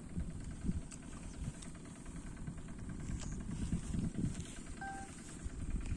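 Low, uneven rumble of wind buffeting the phone's microphone, with a brief faint tone about five seconds in.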